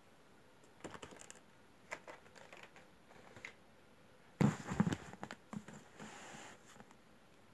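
Cardboard box of a model airliner being handled: scattered light taps and rustles, then a louder cluster of knocks about four and a half seconds in, followed by about a second of scraping as the box is moved.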